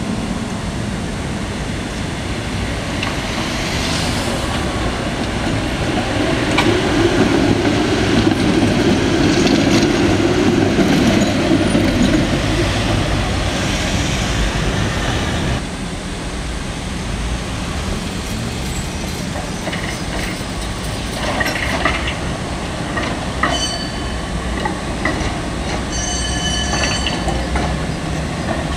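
City street traffic with a tram: in the first half a low rumble swells as a vehicle passes close. After a cut, a tram's steel wheels squeal on the track in high, wavering tones over the last few seconds as it rounds the curve.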